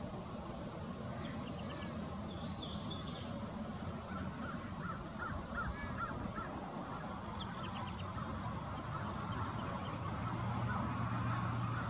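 Birds calling in the background: short, rapid runs of high notes repeated four times, with a string of lower notes in the middle, over a steady low rumble of distant traffic.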